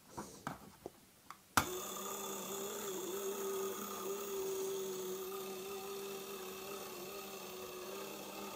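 A few faint taps, then a sharp click about one and a half seconds in, after which the small electric motor of a Busch model field-railway locomotive runs on test with a steady, slightly wavering tone.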